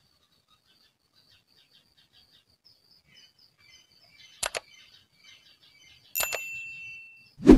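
A long-handled rake knocking and scraping through a pile of burning charcoal: a sharp double click about four and a half seconds in, a clank that rings briefly about six seconds in, and a heavy thud near the end. Birds chirp faintly throughout.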